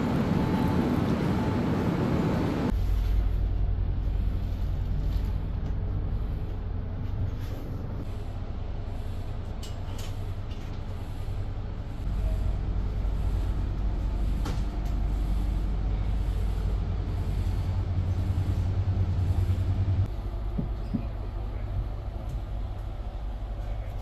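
Broad station platform noise for the first few seconds, then a steady low hum inside a passenger train's sleeper compartment, with a few faint clicks.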